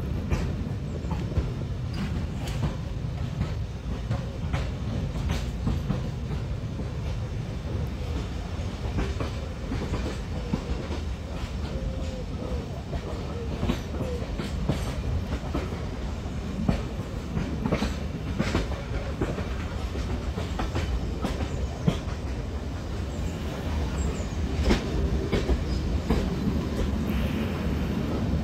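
Steam-hauled heritage passenger carriages rolling along the line: a steady low rumble with irregular sharp clicks of the wheels over the rail joints, heard from beside the carriage.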